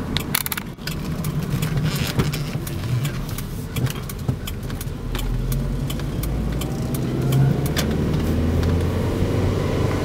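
A car driving along a road, heard from inside the moving car: a steady low rumble with many small clicks and rattles over it.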